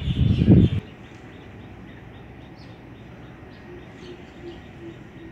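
Bird chirping in an even, rapid series, about five chirps a second, with a dove cooing a short run of low notes about four seconds in. A brief loud rumbling noise comes right at the start.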